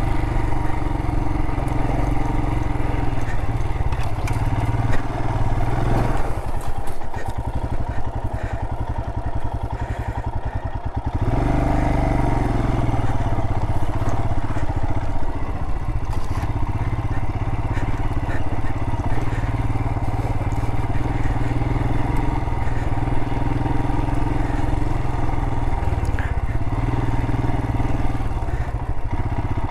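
Adventure motorcycle engine pulling in first gear through deep sand. About a third of the way in the engine slows to separate low pulses for about five seconds, then picks up again.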